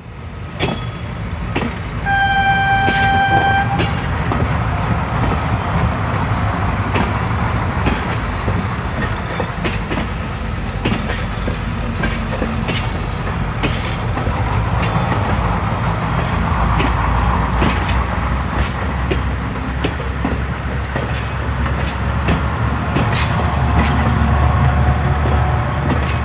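Train running on the track, with a steady rumble and the wheels clicking over rail joints. A single horn blast about two seconds in lasts close to two seconds.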